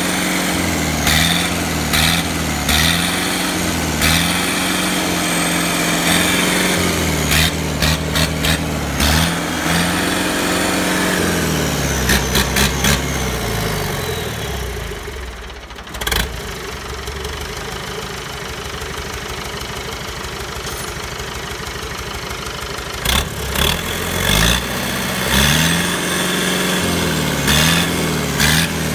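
Yanmar US45 tractor's diesel engine on a test run after repair, its speed rising and falling in the first half, settling to a slower idle in the middle, then picking up again near the end, with sharp clicks throughout.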